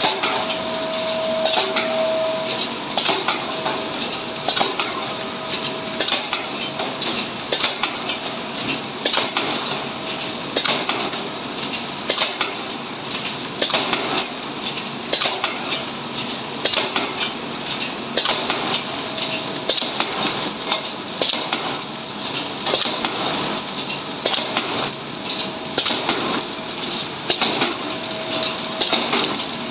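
Horizontal flow wrap packaging machine running, its mechanism clacking in a regular rhythm of sharp metallic clicks about once a second over a steady high hiss. A faint steady tone sounds at times, clearest in the first two seconds.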